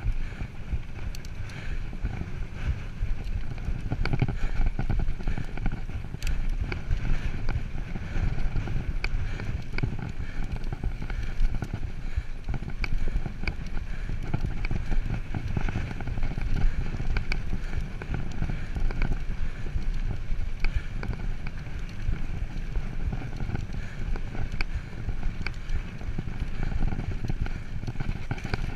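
Mountain bike rolling on a dirt singletrack: a steady low rumble of tyres and wind on the microphone, with frequent small rattles and clicks from the bike over bumps.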